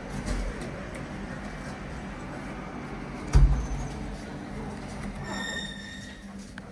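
2000 IGV & TH Hissi bottom-drive traction elevator in operation: a steady low hum, one heavy thump about halfway through, and a short electronic beep near the end.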